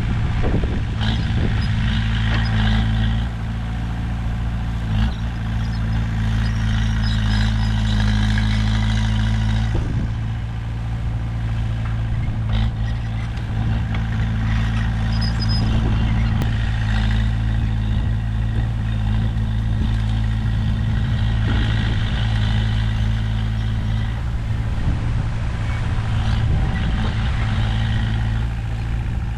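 Komatsu bulldozer's diesel engine running steadily at working speed, with higher-pitched mechanical noise that comes and goes and a few short knocks.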